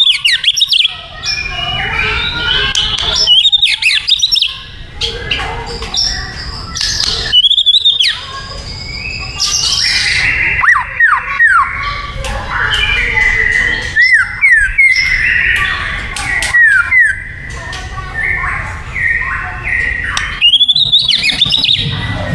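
White-rumped shama (murai batu) singing a long, varied song of loud whistled phrases and rapid notes, with a run of sharp down-slurred whistles in the middle stretch, over a steady low background hum.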